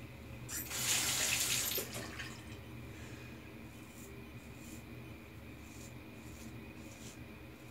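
Bathroom tap running briefly, about a second and a half of running water, as when a safety razor is rinsed between passes.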